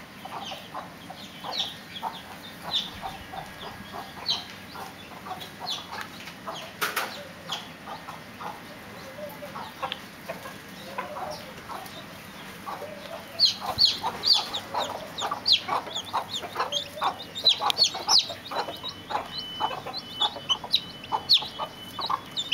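Chickens clucking. From about halfway on, a busy run of short, high chick peeps joins in and becomes the loudest sound.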